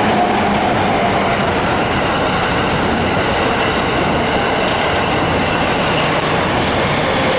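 A train running past close by on the tracks: a loud, steady rumble with a faint whine and light clicks.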